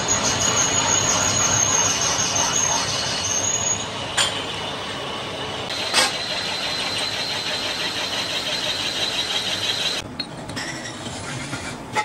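Metal-lathe workshop machinery running with a steady high-pitched whine, and two sharp metal clinks about four and six seconds in as steel cylinder sleeves are set down; the noise drops about ten seconds in.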